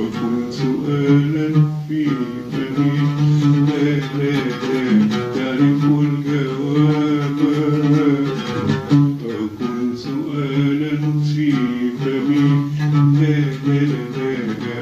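A man singing a slow melody in long held notes, accompanying himself on a plucked oud, in an informal rehearsal recording.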